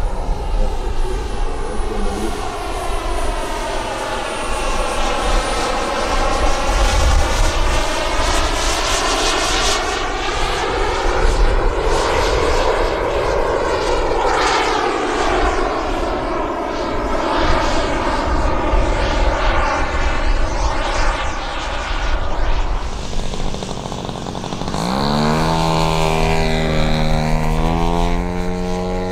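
Small turbine jet engine of a radio-controlled F-16 model flying overhead, a steady jet noise whose tone sweeps up and down as it passes. About 25 seconds in, after a cut, a model P-47 Thunderbolt's propeller engine rises in pitch at full power as it takes off.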